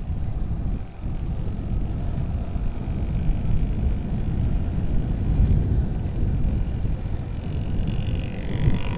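Motorcycle riding noise at the rider's microphone: a steady low rumble of wind and road noise with the engine underneath.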